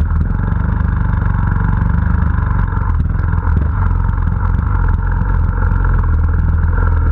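Trials motorcycle engine running steadily while riding, heard close by.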